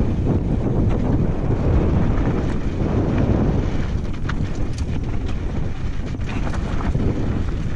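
Wind buffeting the microphone of a mountain bike's camera as it descends a loose rocky gravel trail, over the steady rumble of tyres rolling on stones. A few sharp clicks and rattles come a little past halfway.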